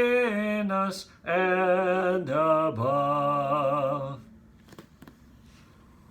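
A man singing the closing phrase of a hymn unaccompanied, with a breath break about a second in. He holds the last notes and stops about four seconds in, leaving faint room tone with a few soft clicks.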